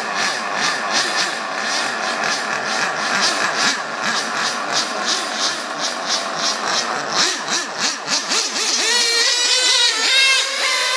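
Small high-revving engines of Kyosho V-One nitro RC touring cars running, with a regular pulsing hiss. Near the end, the engine pitch climbs and drops sharply several times as the throttle is worked.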